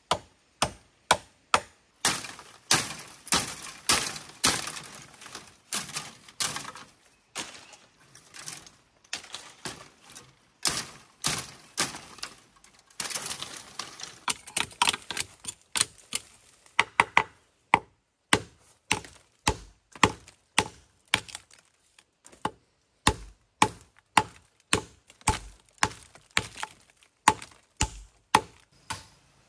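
Machete chopping into a thick green bamboo stem near its base: sharp, separate chops about one to two a second.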